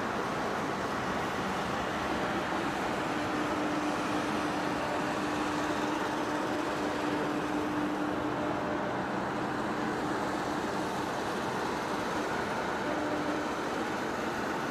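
Heavy-duty face lathe running, a steady mechanical drone with a faint steady hum in it.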